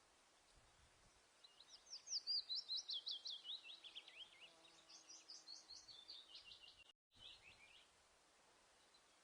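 A songbird singing a fast, rapid run of high, downward-sliding chirps, starting about a second and a half in and trailing off near the end, over a faint steady hiss. The sound cuts out completely for a moment just before the song ends.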